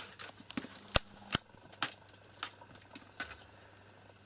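A kitten playing: a scatter of light clicks and taps, two sharper ones about a second in, over a faint steady low hum.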